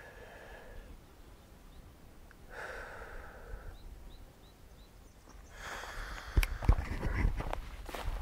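Two short breaths, faint bird chirps, then from about five and a half seconds in, rustling, knocks and footsteps on scrubby ground as a hiker handles the camera and walks off.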